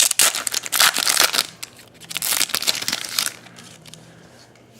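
Trading card pack wrapper crinkling and crumpling in the hands for about three seconds, then quieter.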